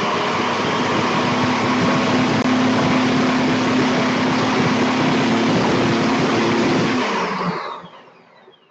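ThermoCook Pro's blades running at high speed, chopping lemongrass, ginger, garlic and onion into a spice paste, with a steady motor hum. About seven seconds in the motor is switched off and spins down, its whine falling in pitch as the blades slow to a stop.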